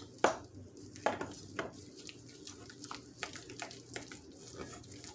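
A utensil scraping and clicking against a stainless steel mixing bowl as an egg yolk is stirred into a heavy chicken-flour dough, in irregular strokes.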